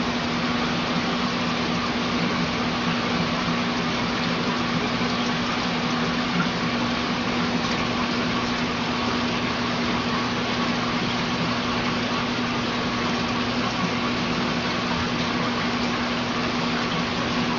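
Aquarium water pump running: a steady rush of water over a constant hum.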